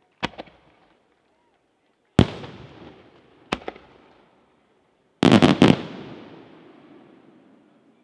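Aerial firework shells bursting: a sharp double bang just after the start, a louder bang about two seconds in, another double bang about a second later, then a quick cluster of several loud bangs a little past five seconds. Each bang echoes away slowly.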